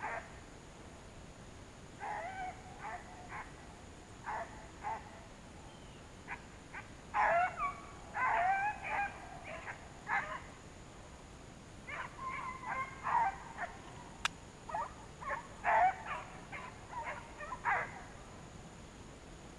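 Hunting hounds barking and baying at a distance, in irregular bursts of short calls.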